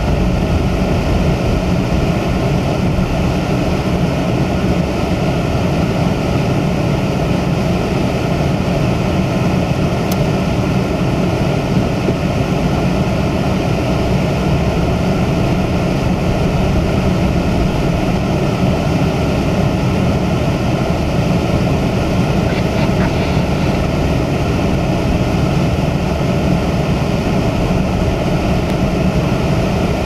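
Steady in-car driving noise: a car's engine and its tyres on a snow-covered street, a constant low rumble heard from inside the cabin.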